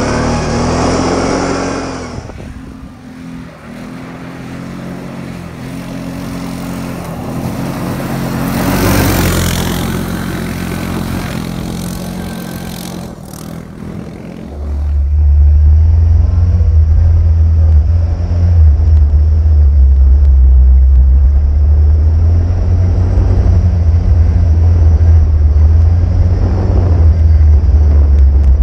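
Goes 520 quad's engine running and revving as it is ridden on gravel, its pitch rising and falling. For most of the second half a loud, steady low rumble covers everything else.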